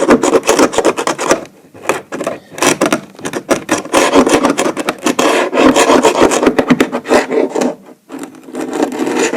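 Hand scraper scraping paint off an oak floor in quick repeated rasping strokes, pausing briefly about two seconds in and again near the end.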